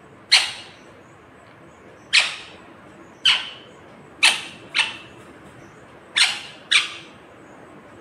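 Plastic snack packet crackling in seven sharp bursts, some in quick pairs, as an Indian ringneck parakeet grabs and shakes it in its beak.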